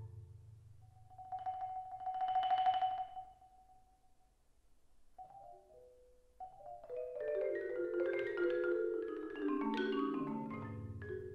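Solo marimba played with four mallets. A single high note is rolled in a rapid tremolo that swells and fades. After a short pause comes a flurry of notes that works its way down into the low register and rings on.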